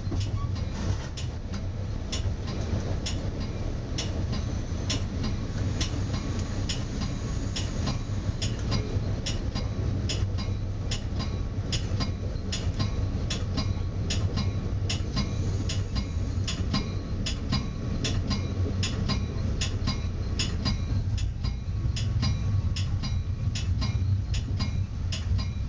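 Metra commuter train running at speed, heard from inside the cab car: a steady low rumble of wheels on rail with a quick, fairly even run of sharp clicks over it, as the wheels cross rail joints and the car rattles. A faint steady whine comes in partway through.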